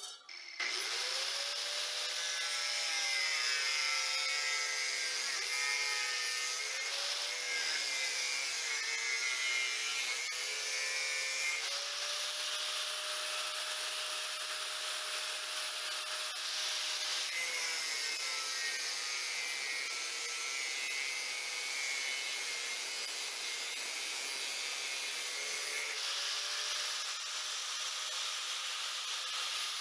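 Corded angle grinder starting up about half a second in and then running continuously as it is worked against a small piece of sheet metal. Its motor pitch dips and recovers several times as the disc bears on the metal.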